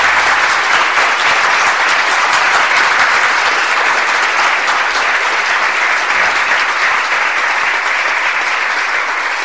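Applause from an audience, a dense steady clapping that eases off slightly near the end.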